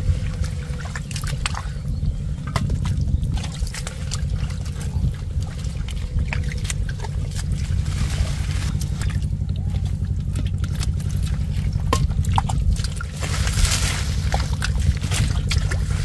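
Water splashing and sloshing in many small irregular splashes, as in hand fishing in shallow water, over a steady low rumble.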